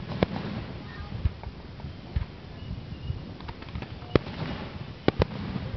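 Aerial fireworks shells bursting: several sharp bangs at uneven intervals, two of them in quick succession near the end, over a steady low background din.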